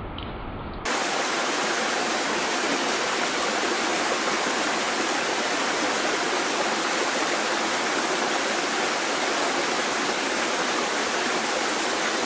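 A loud, steady rushing noise, even and without rhythm, begins abruptly about a second in and holds unchanged.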